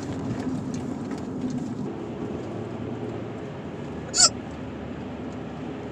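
A woman hiccups once, loud and sharp, about four seconds in, over the steady rumble of a car's cabin on the move.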